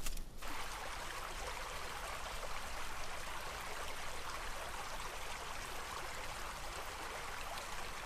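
Shallow creek running over rocks and pebbles: a steady, even babble of water that begins just after the start.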